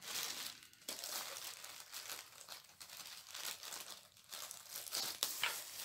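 Clear plastic bag around a diamond painting kit crinkling on and off as it is handled and opened.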